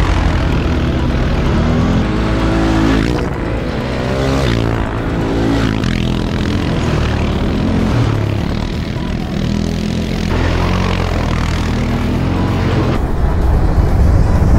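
Four-wheeler (ATV) engines running and revving, their pitch rising and falling several times; near the end a quad is close by and louder.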